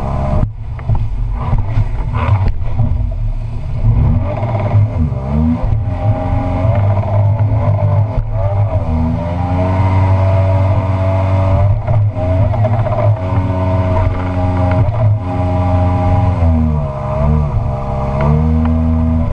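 Tohatsu M50D2S two-stroke outboard with a water-jet drive running under load, its revs dipping and rising again several times, over the rush of water along the hull.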